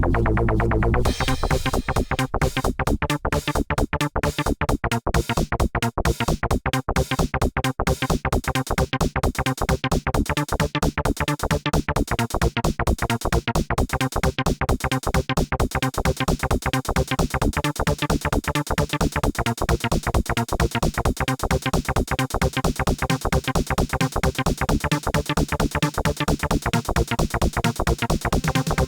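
Electronic background music with a fast, steady drum-machine beat and synthesizer.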